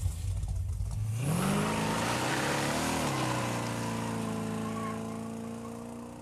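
A car engine revving as the car pulls away. Its pitch climbs about a second in, then holds steady while the sound slowly fades as the car drives off.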